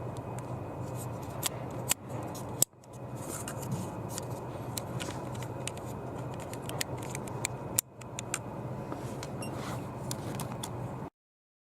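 Scattered small clicks and rattles of plastic and metal being handled over a steady background hum. The sound cuts out abruptly near the end.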